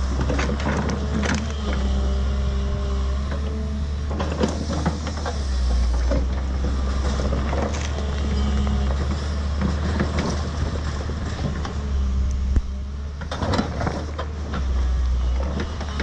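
New Holland tracked excavator's diesel engine running steadily under load with its hydraulics working, broken by irregular cracks and knocks as the bucket tears into roots and soil, with clusters of them near the start, around four seconds in and near the end.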